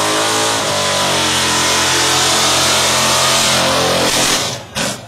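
Drag-racing muscle car's engine held at high revs with its rear tyres spinning in a burnout, a steady engine note under a dense tyre hiss, dropping away abruptly near the end.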